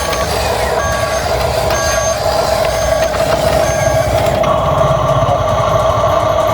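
Electronic reversing beeps from an RC construction toy's sound module, repeating about once a second over a steady electronic whine. A second steady tone joins about two-thirds of the way through.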